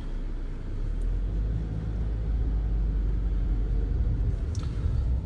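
A car being driven, heard from inside the cabin: a steady low rumble of engine and road noise that grows gradually louder.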